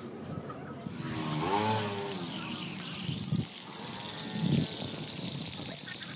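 Water starting to run from an opened garden tap about a second in, then running steadily, as water flows through the patched PVC pipe. A short pitched sound that bends up and down comes shortly after, and a low bump comes near the end.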